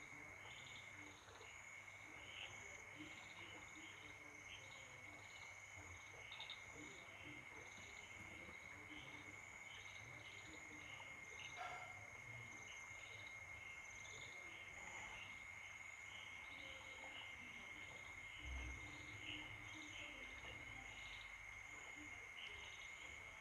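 Faint night insect chorus: a steady, unbroken high cricket trill with scattered shorter chirps above it.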